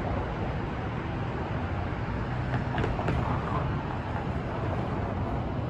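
City street traffic: a steady hum of cars passing below, with two faint clicks about halfway through.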